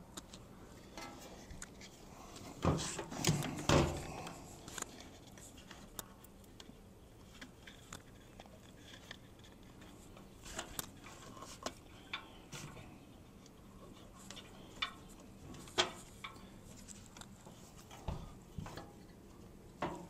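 Faint, scattered clicks and knocks of hands working under a motorcycle, fitting heat shrink tubing over the brake light switch wiring. Two louder knocks come about three and four seconds in.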